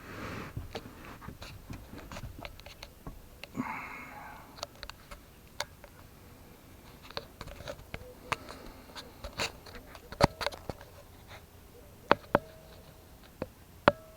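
Scattered knocks, taps and rustling as a person climbs onto and shifts about on a wooden bed platform in a van. The boards are set in place but not yet screwed down. A few sharper knocks stand out near the middle and end.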